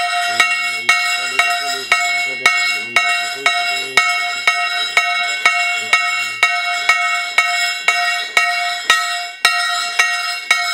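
Cluster of hanging brass temple bells rung over and over, about two strokes a second, each ring carrying on into the next.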